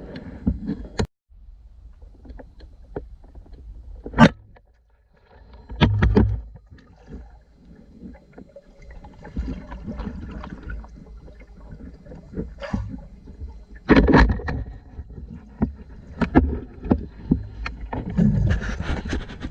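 Water splashing and sloshing around the camera during spearfishing, with irregular sharp knocks and clicks from the camera being handled, the loudest at about four, six and fourteen seconds in.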